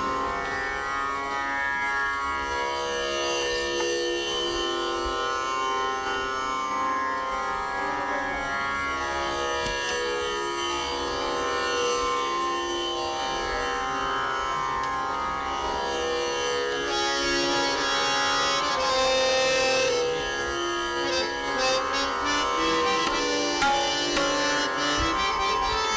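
Hindustani classical music: a slow melodic line gliding between long held notes over a steady drone. Tabla strokes come in over the last few seconds.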